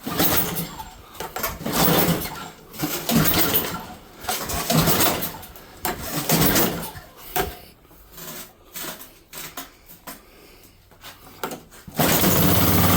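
Gas snowblower engine being pull-started cold, choke on and primer run: a series of recoil-starter pulls turning the engine over without it catching, a hard start, until near the end it fires and runs steadily.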